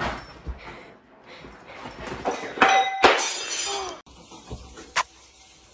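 Clattering crash noises, loudest in two bursts about two and a half and three seconds in, with a knock at the very start and a single click near the end.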